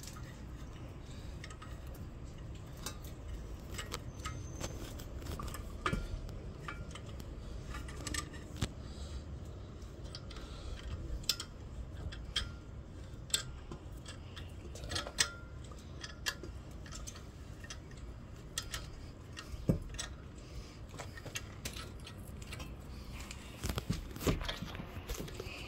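Scattered light metallic clicks and clinks with a few sharper knocks, from a metal bar and tools working a polyurethane bush, slicked with washing-up liquid, into the rear axle's mounting eye.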